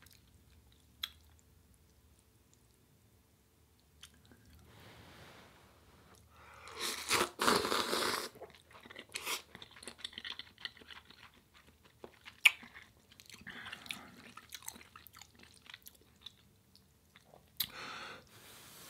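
Close-miked eating of instant ramen noodles: wet chewing and slurping of the noodles, loudest for about two seconds around seven seconds in, with a few quieter bouts later.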